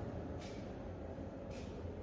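Steady low hum of a large underground station's ambience, with short soft scuffs of footsteps on stairs about once a second.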